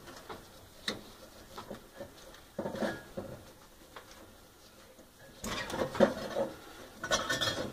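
Scattered small clicks and metallic clatter of a gloved hand handling the igniter wiring and sheet-metal parts inside a gas oven's burner compartment, busier and louder over the last two seconds.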